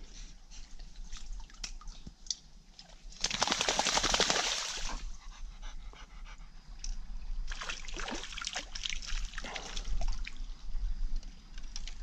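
A dog wading through a shallow creek, the water sloshing and splashing around it. There is a loud splashing surge about three seconds in and more bouts of splashing later on.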